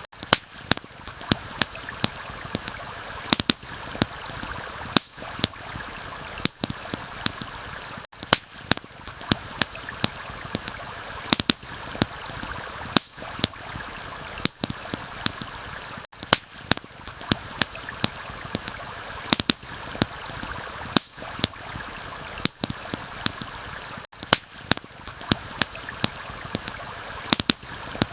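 Stream rushing steadily, with campfire wood crackling over it in sharp, irregular pops a few times a second.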